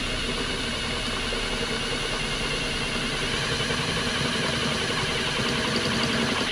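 Cordless drill running steadily as a 25/64-inch bit cuts through a school bus's sheet-metal body panel, then stopping abruptly at the end.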